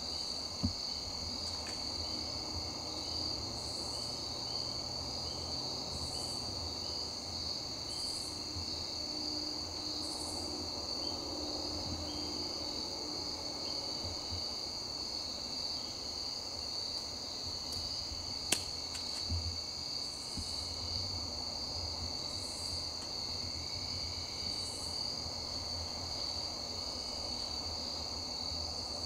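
Steady chorus of crickets and other insects: one continuous high trill, with a second, higher pulsed call repeating about every two seconds for stretches. Two brief sharp clicks, one near the start and one about two-thirds through.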